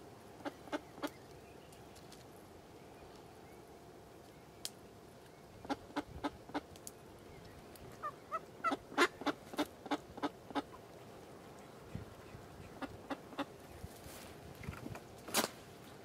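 Live Semyonov decoy hen duck quacking in short runs of sharp quacks, calling to draw in drakes. The longest and loudest run, about ten quacks, comes in the middle, with shorter runs before and after and a single loud quack near the end.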